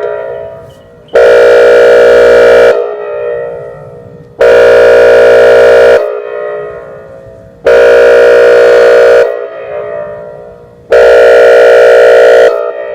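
Recorded Whelen outdoor warning siren sounding four loud, steady-pitched blasts. Each blast lasts about a second and a half and they come about three seconds apart, with an echo dying away after each.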